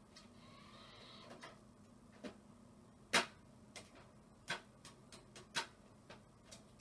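Scattered sharp clicks and taps at irregular intervals, the loudest about three seconds in, over a faint steady low hum.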